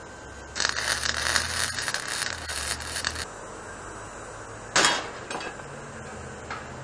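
Lincoln MIG welder arc crackling steadily for about two and a half seconds as angle iron is welded, with a low hum under it. About a second and a half after the arc stops comes a single sharp metal clank with a short ring, as the steel gas cylinder knocks against the angle-iron frame.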